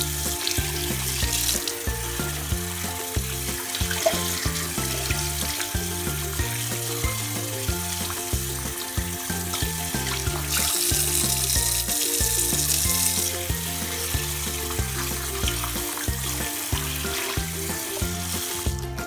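Kitchen tap water running and splashing over raw chicken bones in a bowl in a sink, a louder rush for a few seconds around the middle. Background music with a stepping bass line plays throughout.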